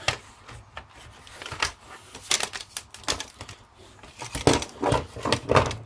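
Irregular clicks, cracks and knocks of plastic and small metal parts as an old landline telephone is pried apart by hand, the sharper, denser ones coming in the second half.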